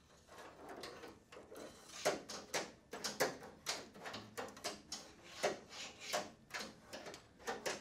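Metal throttle rod being fed by hand through a Porsche's underbody, sliding and catching on the chassis in a run of irregular light clicks, knocks and scrapes.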